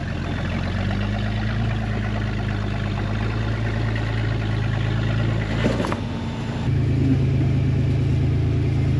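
Rock buggy engine running at low crawling revs as it climbs over boulders, with a brief knock about six seconds in. Then a second buggy's engine takes over, louder and steady.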